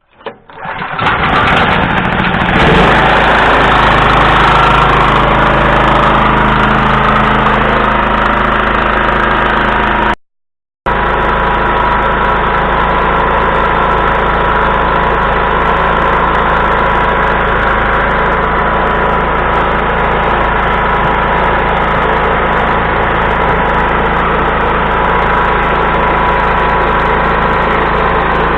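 Portable generator engine started without a battery, catching about a second in and settling into a steady run. The sound drops out completely for about half a second partway through, then the engine runs on steadily.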